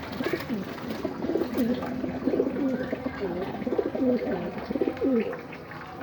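Puter (ringneck dove) cooing: a run of low, gliding coos repeated over about five seconds, stopping near the end.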